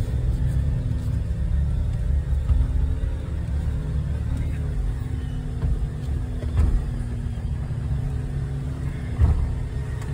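Jeep engine and drivetrain droning steadily at low speed as it crawls uphill on a rough dirt trail, heard from inside the cabin. A couple of short knocks come through, about six and a half and nine seconds in.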